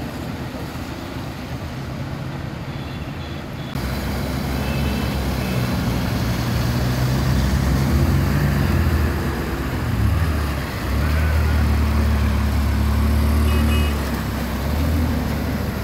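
Traffic driving through a flooded road: motor scooter and truck engines running in a steady low drone as the vehicles wade through the water. The drone becomes louder about four seconds in and dips briefly near the middle.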